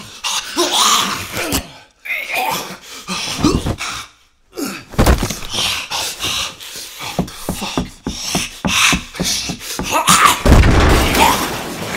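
Sound effects of a violent struggle: a man snarling and growling like an animal, mixed with thuds and blows. A few heavy thumps stand out, the loudest near the end, with a brief silent gap around the middle.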